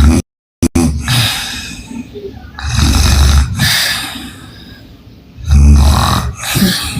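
A woman snoring loudly through an open mouth: a rough, rattling snore about every two to three seconds. There is a brief cut to silence near the start.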